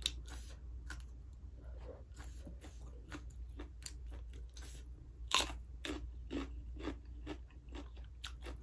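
Close-up chewing and biting of raw okra: a run of small crunches and wet mouth clicks, with one louder crunch about five seconds in.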